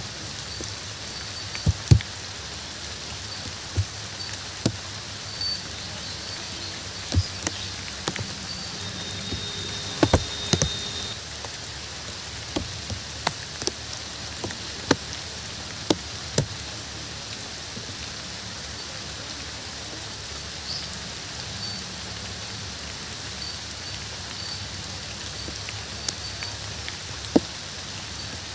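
Steady rain falling, with irregular sharp taps of large drops landing close by; the loudest taps come about two seconds in and around ten seconds in.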